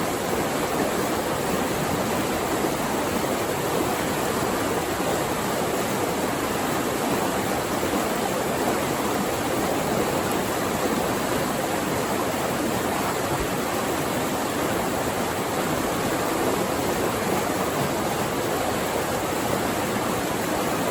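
Flowing water rushing steadily, an even, unbroken sound with no changes.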